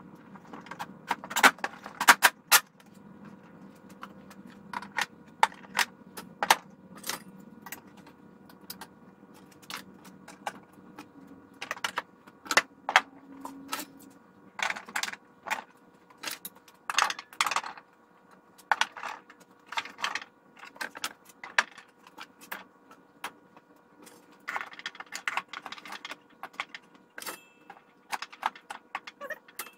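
Metal hand tools and small hardware clinking and knocking against one another and the wooden cabinet as they are handled and hung up: many sharp, irregular clicks and clanks.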